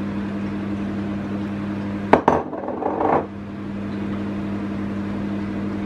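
Handheld metal flour sieve tapped and shaken over a mixing bowl while sifting flour: a couple of sharp knocks about two seconds in, then a short rattle about a second later, over a steady low hum.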